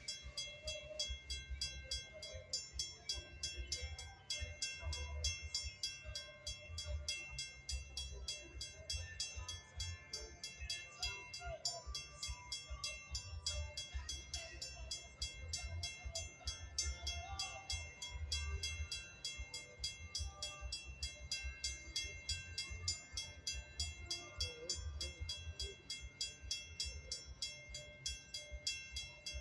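Railroad grade-crossing warning bell ringing with rapid, evenly spaced strokes while a Metra commuter train stands at the crossing, with a low uneven rumble underneath.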